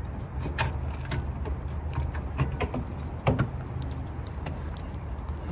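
Scattered metallic clicks and knocks of an unbolted brake caliper being handled and moved off the rotor, the loudest knock a little past the middle, over a steady low background rumble.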